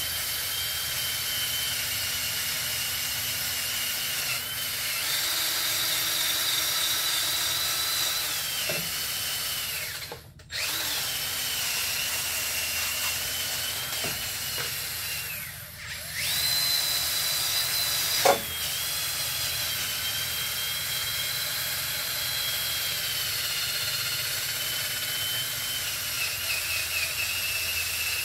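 Cordless drill spinning a wire brush against the cylinder top of a golf cart engine, scrubbing the metal clean. It makes a steady high whine that shifts in pitch as the speed changes. The whine stops briefly about ten seconds in and dips again around sixteen seconds, and a single sharp click follows shortly after.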